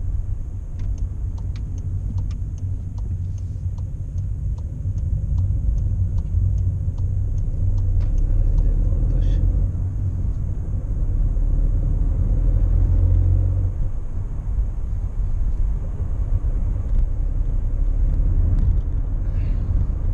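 Engine and road noise heard inside a moving Škoda car's cabin: a steady low rumble that grows louder twice. Scattered faint clicks run through the first half.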